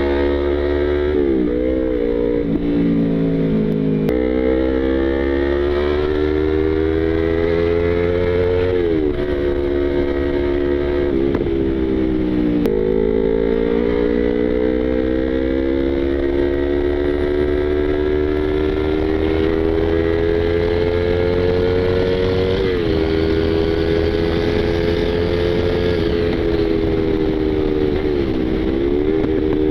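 Yamaha YZF-R25/R3 parallel-twin engine under way, its pitch climbing steadily with speed and dropping sharply at several quick gear changes or throttle lifts, with one long, slow climb in the middle.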